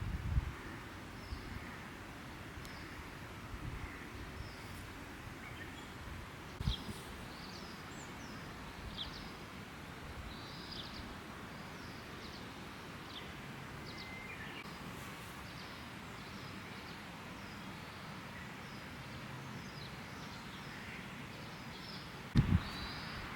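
Small birds chirping again and again over a steady outdoor hiss, with a few low thumps near the start and once more about a quarter of the way in.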